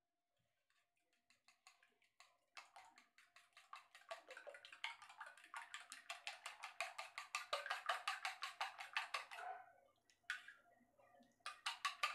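Egg being beaten with a fork in a small steel bowl: quick, even clicking strokes, about five a second, that start a couple of seconds in, stop for a moment near the end, then start again.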